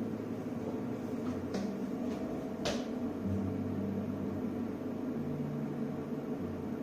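Steady electrical hum and fan noise from an electric grill and its power inverter running under a heavy load of about 130 amps, with two light clicks about a second and a half and nearly three seconds in.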